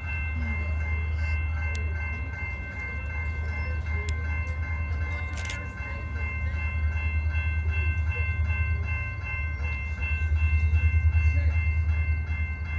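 Diesel-hauled freight train running by, a heavy low engine rumble with several steady high-pitched tones held above it. The rumble grows louder about ten seconds in.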